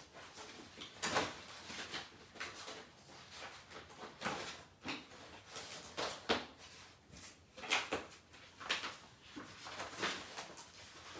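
Rummaging through stored craft paper: irregular rustles and knocks of sheets and packs being shifted and handled, searching for an uncut piece of patterned paper.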